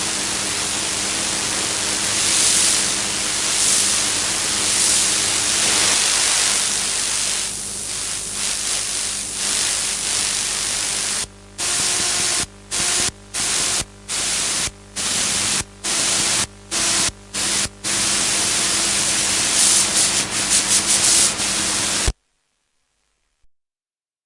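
Radio static: a loud hiss of interference with a low steady hum beneath it. About halfway through it cuts out and back in several times in quick succession, flutters again later, then stops suddenly near the end.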